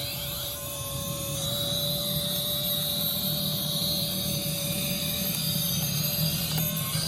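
Electric motor and gear drive of a radio-controlled off-road crawler truck whining steadily as it drives, with a fast low hum beneath, a little louder from about a second and a half in.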